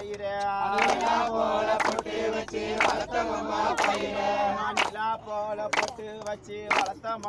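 A group of voices singing or chanting together, several pitches overlapping and held, with a sharp beat roughly once a second and a steady low hum underneath.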